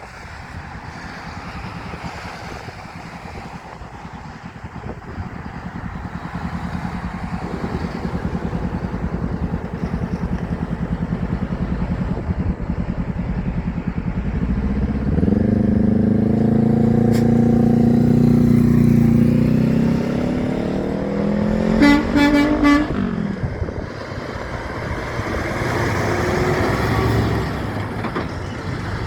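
Heavy truck approaching and passing with its diesel engine pulling hard, the engine note rising at about halfway, then a few short, quick blasts of an air horn a little over two-thirds of the way in, with road traffic noise around it.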